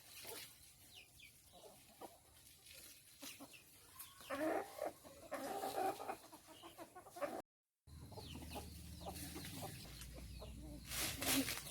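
A flock of chickens clucking, with many short high calls. The clucking is loudest a few seconds in, and the sound drops out for a moment just past halfway.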